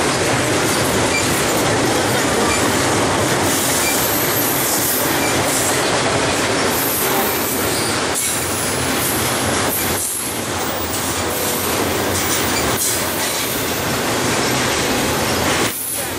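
BNSF double-stack container train rolling past close by: a steady, loud rush of steel wheels on rail under the passing well cars, dipping briefly near the end.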